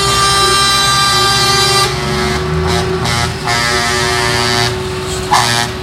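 Truck air horns blowing, one long blast held for about two seconds and then several shorter toots, over the diesel engines of semi-truck tractor units driving past.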